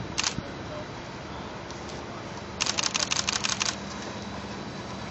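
Camera shutter clicks: a single shot, then a fast burst of about a dozen shots about two and a half seconds in. Underneath is the steady hum of a Bombardier Flexity tram rolling slowly past.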